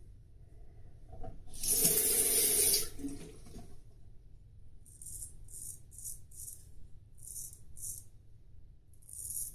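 Bathroom tap running for about a second and a half, loud and hissy, then a string of short, high, scratchy swishes, about two a second.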